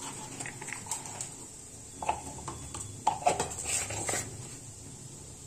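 Cumin seeds sizzling in hot oil in a kadhai, a steady faint hiss. A few short, louder sounds from elsewhere come in about two seconds in and again around three to four seconds in.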